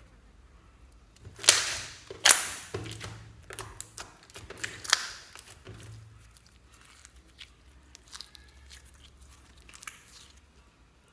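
Clear glitter slime with tiny fruit slices being squished and stretched by hand: a few loud sticky squelches and pops in the first half, then softer crackling clicks that thin out near the end.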